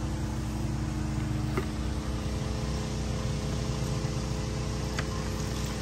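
A small engine running steadily with an even hum, with a couple of faint clicks over it.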